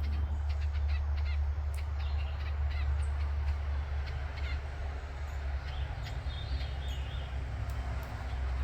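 Harsh caw-like bird calls over a steady low rumble of outdoor backyard ambience.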